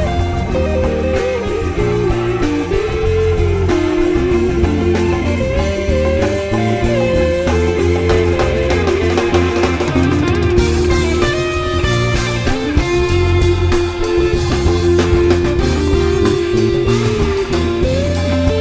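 Background rock music led by electric guitar, its melody sliding and bending between notes over a steady bass line.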